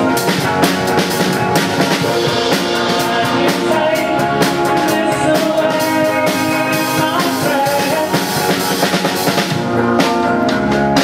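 Live band playing a song: strummed acoustic guitars and an electric guitar with voices singing, over a steady drum beat.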